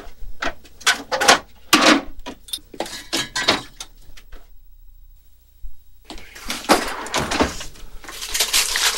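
Kitchen clatter of dishes and food containers being handled: many quick knocks and clinks, a short lull about halfway through, then a busier run of rattling and knocking.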